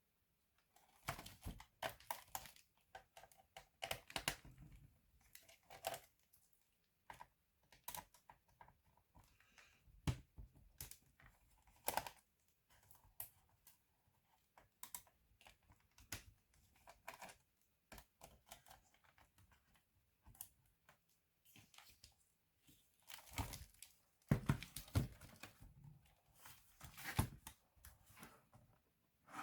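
Irregular clicks, taps and rustling from a Lenovo B570e notebook being worked on by hand, its plastic case and parts knocking and rubbing, with the busiest handling near the start and again near the end.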